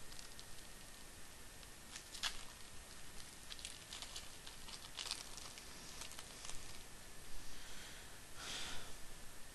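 Yu-Gi-Oh! Duelist Pack foil booster wrapper being torn open and crinkled in the hands, as a series of short, faint rustles.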